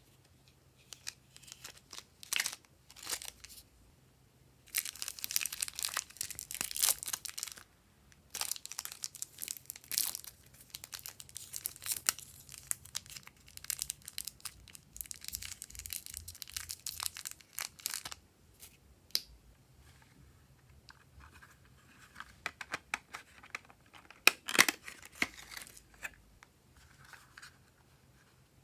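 Glossy slime being squished and stretched by hand, giving sticky crackling and popping sounds in several bursts, with quieter gaps of scattered clicks between them.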